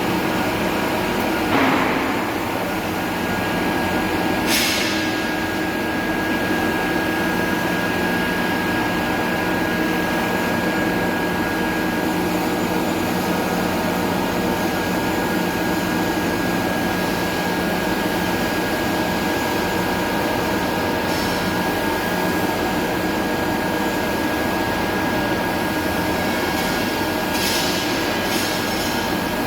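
Steady hum and hiss of a TIG welding setup on stainless steel pipe, with constant electrical tones throughout. A brief falling whine comes about two seconds in, and a short click a couple of seconds later.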